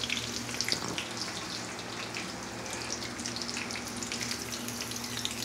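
Breaded chicken cutlets frying in hot oil in a pan: a steady sizzle with scattered crackles and pops, over a faint low steady hum.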